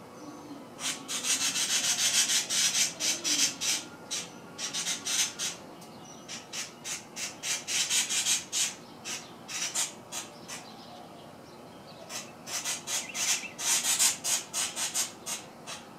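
Cactus wren giving its harsh, rasping scold: three bouts of rapid grating notes. It is an alarm directed at a cat under the tree.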